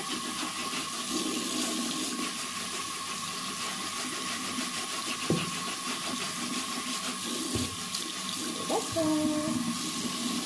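Tap water running steadily into a bathroom sink and splashing over a shoe held under the stream, with a single knock about five seconds in.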